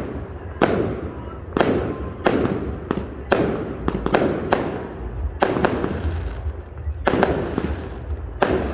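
Fireworks bursting: about a dozen sharp bangs at uneven intervals, some in quick pairs, each trailing off in a rumble.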